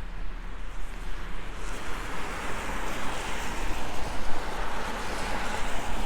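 A vehicle passing on a wet, slushy street: a tyre hiss that swells over a couple of seconds and then eases off.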